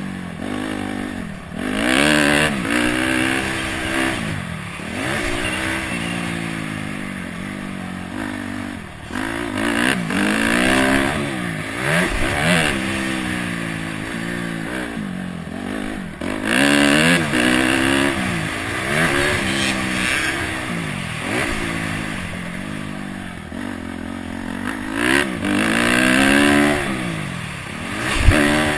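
Honda CRF250X's single-cylinder four-stroke engine revving up and dropping back over and over as the throttle is opened and closed, with a sharp knock near the end.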